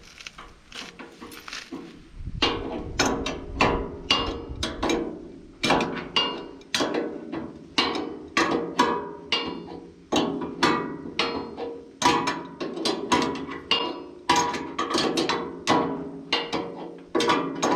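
Hammer blows on metal, a fast steady run of about two to three strikes a second, each ringing. The run starts about two seconds in, after a few lighter taps.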